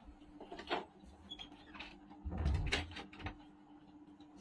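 A person chewing chicken eaten by hand: short wet smacks and clicks of mouth and fingers, with one louder, muffled bump about two and a half seconds in.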